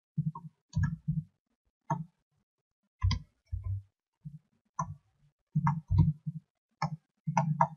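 Computer keyboard typing: irregular single key clicks, about two a second, as letters are typed in.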